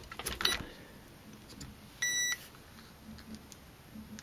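A single short electronic beep, one steady pitched tone lasting about a third of a second, two seconds in. A few light clicks come near the start.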